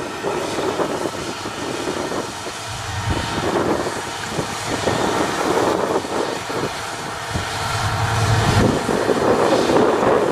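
Combine harvester running, a steady loud mechanical din that swells and eases, loudest near the end.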